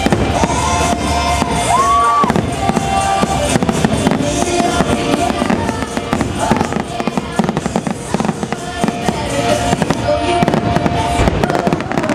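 Fireworks finale: a dense, continuous run of bangs and crackling bursts from aerial shells, with the show's music soundtrack playing along.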